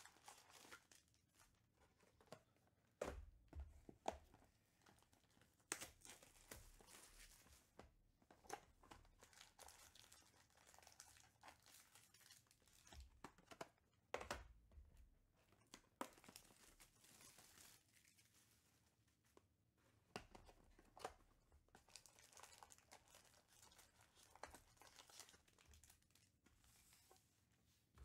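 A Panini Elite Extra Edition baseball card hobby box being opened and its foil card packs handled: irregular crinkling and tearing of the box and wrappers, broken by sharp taps and knocks as the packs are set down on the table.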